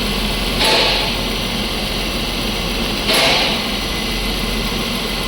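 Car engine idling with the freshly recharged air conditioning running, a steady mechanical hum and rush. A louder hiss swells briefly twice, about half a second in and about three seconds in.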